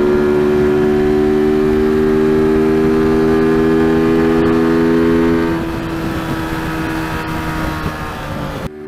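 TVS Apache RTR 200's single-cylinder engine pulling hard at highway speed under wind rush, accelerating steadily. About five and a half seconds in, the throttle eases and the engine note drops quieter. The sound cuts out briefly near the end.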